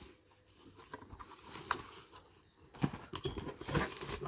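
Cardboard shipping box being opened by hand: scattered soft scrapes and taps as the flaps are pulled open, busier in the last second or so.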